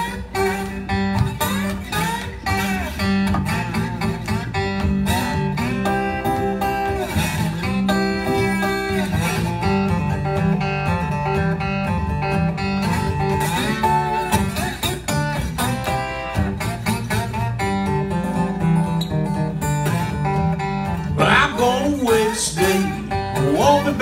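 Acoustic guitar in open G tuning played slide-style, an instrumental Delta blues intro over a steady bass pattern, with sliding notes near the end.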